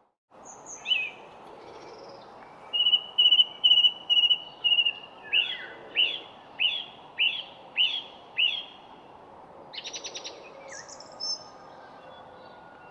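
A songbird singing: five level whistled notes in quick succession, then a run of seven clear notes that each slur downward, about two a second, followed by a brief rapid trill and a few softer calls. Steady background noise runs underneath.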